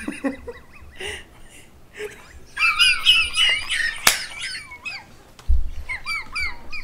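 Two men laughing hard, the laughter high-pitched and wavering, starting about two and a half seconds in, with a single sharp click near four seconds and a second bout of laughter near the end.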